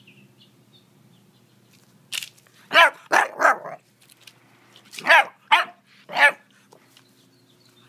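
Pit bull puppy barking: two bursts of short barks, about three seconds in and again about five seconds in.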